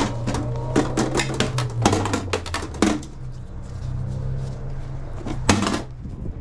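Metal tongs and utensils clicking and clattering against a stainless-steel hot dog cart's counter, lids and water bath: a quick run of sharp clicks in the first three seconds and one louder knock near the end, over a steady low hum.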